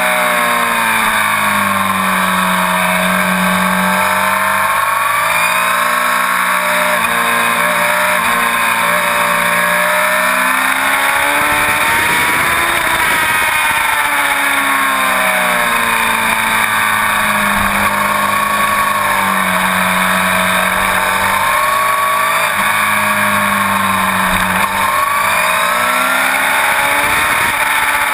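Inline-four sportbike engine heard from the bike itself, its pitch climbing and falling again and again as the rider accelerates and backs off, with steady wind and road rush underneath.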